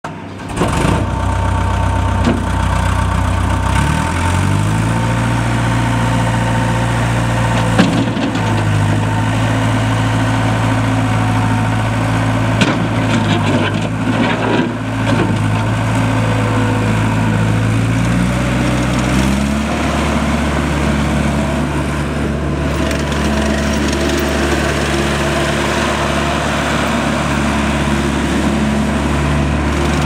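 ASV RC-85 Posi-Track compact track loader's diesel engine running, its engine speed stepping up about four seconds in and again after about nineteen seconds. A few short knocks come in the middle.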